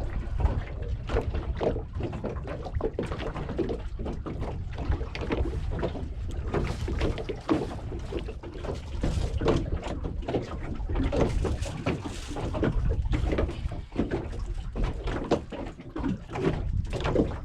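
Small fishing boat at sea: water slapping against the hull with a constant low rumble and irregular knocks and clatter of gear on board.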